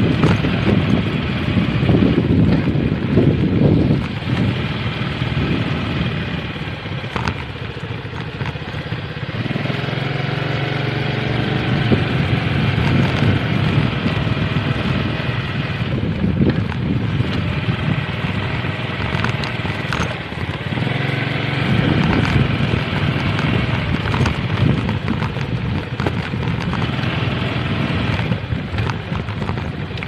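Small motorcycle engine running as it rides over a rough dirt and gravel track, with wind on the microphone and a few knocks from the bumps.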